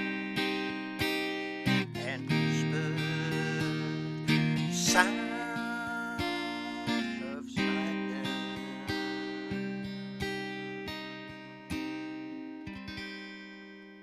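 Acoustic guitar playing the closing chords of a song: slow, even strums about every two-thirds of a second, each chord ringing and decaying, getting steadily softer until a last chord is left to ring out and fade near the end.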